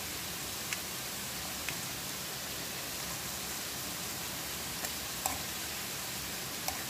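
Lsan l'asfour pastries deep-frying in hot oil: a steady sizzle with a few sharp pops scattered through it.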